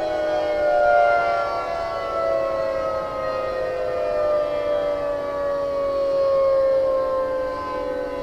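Yamaha music siren sounding a chord of several tones held together, the whole chord sliding slowly and steadily down in pitch. It is the department store's closing-time signal.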